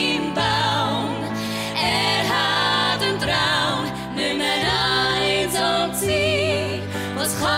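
Women's voices singing a chanson in harmony with wide vibrato, over grand piano accompaniment holding low notes.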